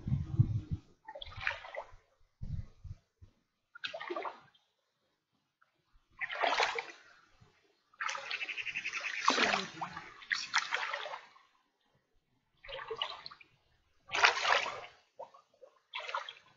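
Shallow river water splashing and sloshing around legs wading through it, in a string of short bursts with near-silent gaps between.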